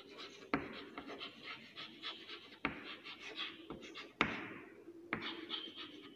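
Chalk writing on a chalkboard: faint scratchy strokes, broken by sharp taps as the chalk strikes the board, the clearest about half a second in, near the middle, after four seconds and near the end.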